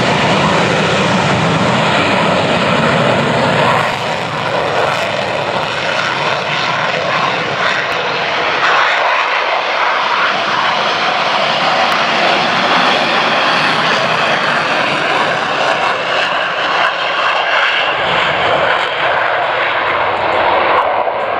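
Two Eurofighter Typhoons taking off in formation, their twin EJ200 turbofans in afterburner: loud, steady jet noise. The deep rumble eases after about four seconds as the jets climb away.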